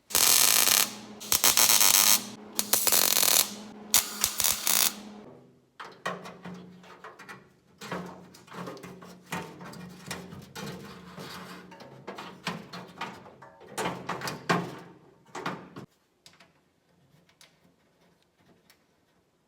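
Welding arc crackling in short bursts over a steady electrical buzz, tacking a steel plate with studs into a Jeep cab's sheet metal: three loud welds in the first five seconds, then quieter crackling welds that stop about three seconds before the end.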